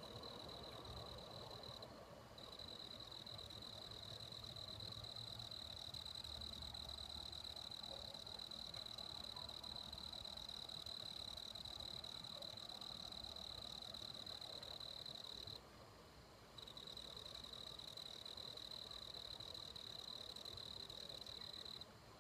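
Insect trilling on one high, steady pitch, breaking off briefly about two seconds in and again for about a second two-thirds of the way through, and stopping near the end.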